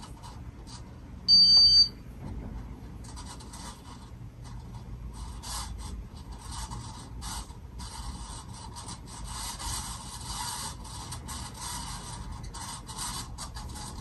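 Ceiling fan running with a rough, irregular scraping noise from badly worn motor bearings, growing louder and more continuous from a few seconds in. A short, loud electronic beep sounds about a second in.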